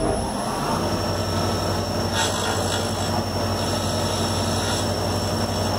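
Omniturn CNC lathe running, its spindle turning at about 2000 RPM while carbide tools face and rough-turn a cast flintlock tumbler: a steady machine hum with cutting noise, and a brighter cutting hiss from about two seconds in until nearly five seconds.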